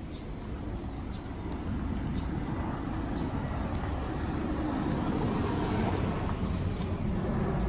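Motor vehicle on the street: a low rumble of engine and tyre noise that grows louder over the first five seconds or so and then holds steady.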